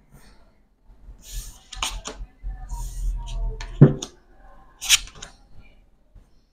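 Playing cards being slid across and laid down on a tabletop: soft swishes and a few sharp snaps, the loudest just before four seconds in and another about a second later.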